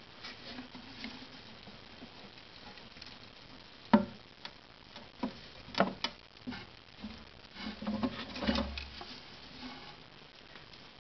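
Small scrabbling, rustling and ticking of a house mouse moving about as it drags its newborn pups, irregular light scrapes with a sharper tick about four seconds in and a busier cluster near the end.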